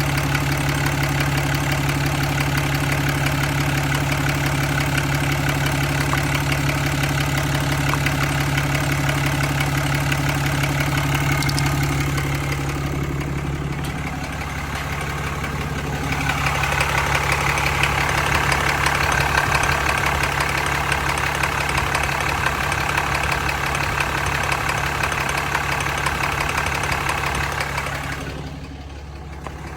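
Cummins 6.7 L inline-six turbo-diesel in a 2015 Ram 2500 idling steadily, with a ticking that the owner is asking about. About halfway through the sound gets brighter and louder, and it drops in level near the end.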